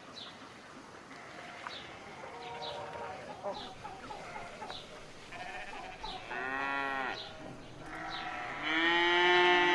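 Farm-animal ambience: livestock bleating, with two long wavering bleats in the second half, the second one the loudest. Faint high chirps repeat over a low background throughout.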